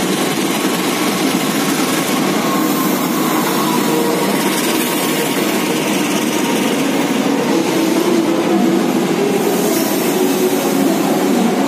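A train rolling alongside a station platform as it pulls in, its cars giving a steady, loud rumble and rattle.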